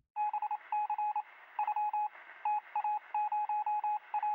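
Short electronic beeps at one steady pitch, coming in quick irregular groups of two to five over a steady hiss, with a thin sound like a signal over a phone line.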